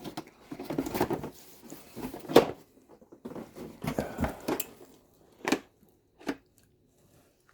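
Rummaging through a box of small electrical hardware: rustling and clattering as items are lifted out, with a few sharp clicks and knocks, the loudest about two seconds in, thinning out near the end.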